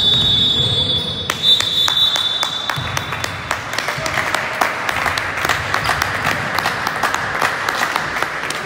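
Referee's whistle blown in two long blasts, then applause and clapping from the crowd and benches for the rest of the time.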